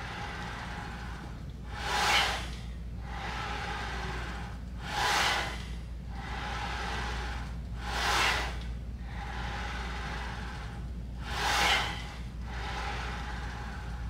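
A man breathing forcefully through a set on a plate-loaded leg press: a sharp, hissing breath about every three seconds, four in all, one with each push. A steady low hum runs underneath.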